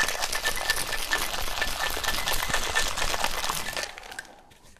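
Ice cubes rattling fast and hard inside a metal cocktail shaker being shaken vigorously, stopping about four seconds in.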